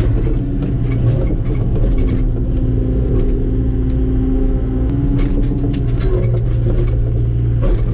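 Komatsu PC75UU-2 midsize excavator's diesel engine running steadily under work. A steady higher tone joins for a few seconds in the middle, and there are a few short knocks near the end.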